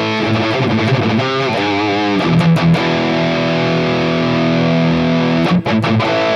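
Electric guitar played through a Mooer Prime S1 modeling unit with a distorted high-gain amp tone: wavering notes with vibrato, then a note held and ringing for about three seconds, then a few short picked notes near the end.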